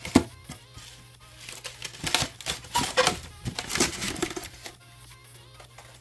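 Styrofoam packaging insert being handled and pulled away, a quick run of knocks, scrapes and squeaks about two to four and a half seconds in, over faint background music.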